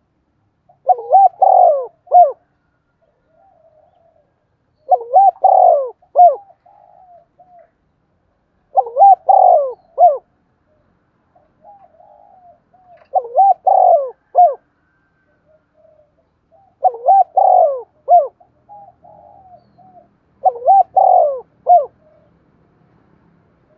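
Spotted dove cooing: six loud coo phrases, each about a second and a half long and repeated roughly every four seconds, with softer short notes between them.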